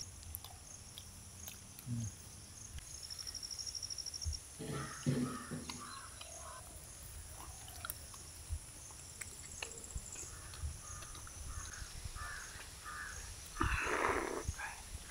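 Quiet outdoor ambience of insects chirping in quick trills over a steady high hum, with a few faint bird calls; near the end comes a loud sip of hot milk tea from a glass.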